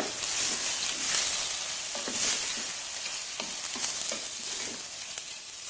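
Chicken wings with onion and garlic sizzling as they sauté in a stainless-steel pot, stirred with a wooden spoon that scrapes and knocks against the pot now and then.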